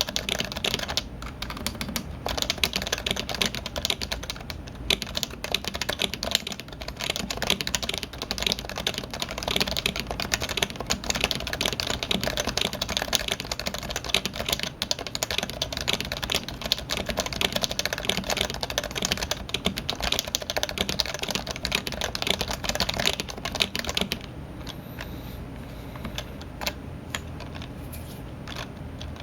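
Fast, continuous typing on a Topre keyboard with electrostatic capacitive switches, a dense run of keystrokes. The typing thins out and gets quieter about 24 seconds in.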